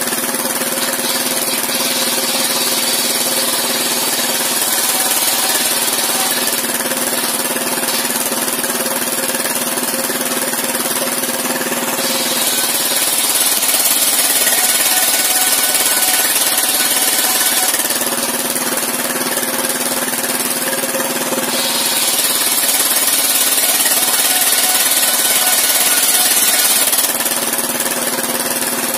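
Engine-driven circular sawmill blade running steadily while planks are ripped lengthwise. The cutting grows louder and hissier twice, for about five or six seconds each, near the middle and toward the end, as the blade bites into the wood.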